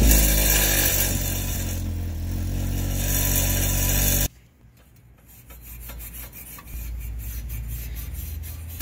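Volvo's exhaust with a loose tailpipe tip, engine running and the tip rattling harshly for about four seconds before the sound cuts off suddenly; the tip is not held tight on the pipe. After that, quieter light metallic clicks over a low hum as the loose tip is handled.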